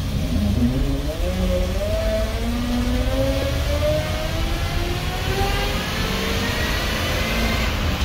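GM 427 big-block V8 of a 1979 GMC 6000 bus accelerating under load, heard from inside the cabin: a low rumble with a note that rises slowly and steadily in pitch until near the end.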